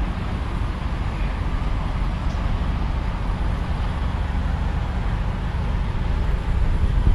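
Steady low rumble of vehicle traffic with no distinct events.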